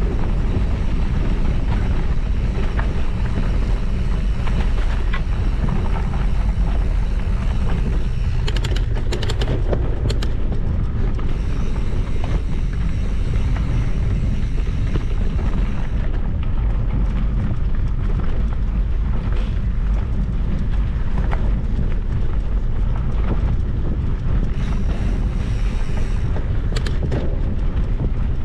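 Steady low rumble of wind buffeting the microphone while moving, with a few short rattling clicks about nine seconds in and again near the end.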